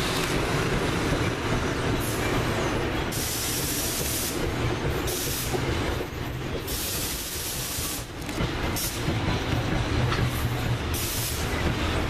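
NJ Transit passenger coaches passing at speed: a steady rolling noise of steel wheels on rail with a low rumble, and stretches of high hiss that come and go.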